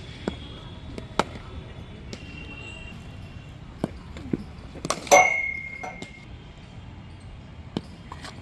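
Cricket ball knocking on bat and pitch during net practice: scattered sharp knocks, the loudest about five seconds in with a brief ring after it.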